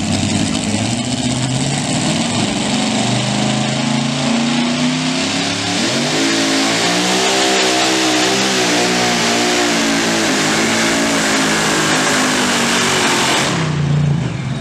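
Supercharged engine of a super modified 2wd pulling truck at full throttle under load, dragging a weight-transfer sled. Its pitch wavers and climbs as the pull goes on. Near the end the throttle is cut and the engine drops to a lower note.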